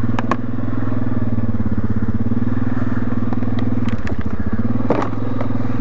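ATV engine running at a steady low throttle as the quad crawls through brush, easing off briefly about four seconds in and picking up again. A few sharp snaps and clicks of branches against the machine.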